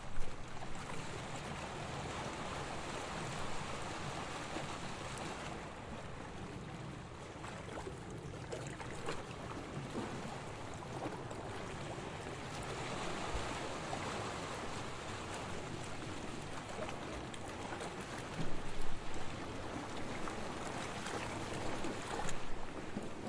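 Gentle waves washing onto a beach: a steady rush of water that swells and fades, with a couple of louder splashes near the end.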